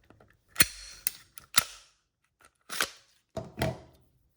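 Glock 19 Gen 5 pistol being field-stripped: a string of sharp metallic clicks, about five, each with a short sliding scrape, as the slide is worked and separated from the frame.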